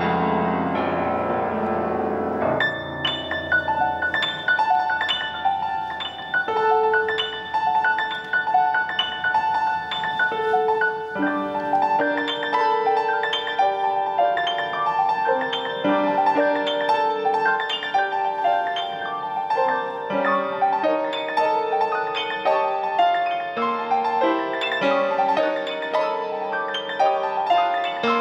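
Piano played: a held chord, then from about two and a half seconds in a quick melody of repeated high notes over a lower accompaniment, which fills out with deeper chords around eleven seconds in.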